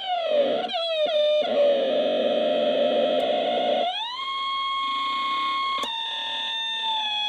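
Circuit-bent portable cassette player sounding its glitch bends: distorted, theremin-like electronic tones that glide down and hold over a gritty buzz, then slide up about four seconds in and hold a higher steady tone, as its volume knob is worked. A click comes near the end.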